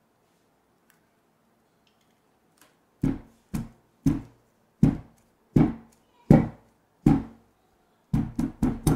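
A square metal cake pan full of sponge-cake batter rapped down on a wooden board again and again to knock out air bubbles: about seven dull knocks roughly every 0.7 seconds starting a few seconds in, then four quicker raps near the end.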